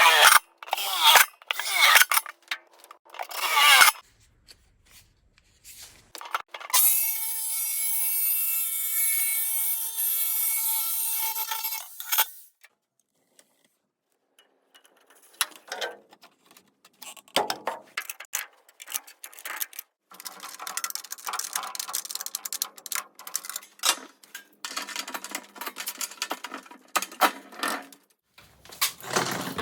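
Woodworking tool sounds on wood: quick rubbing and scraping strokes, then a power tool running steadily for about five seconds and stopping sharply, then more irregular scraping and sawing strokes.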